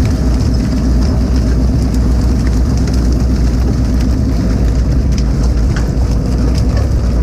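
Fishing boat's engine running steadily with a loud, even low drone, with faint clicks and knocks over it.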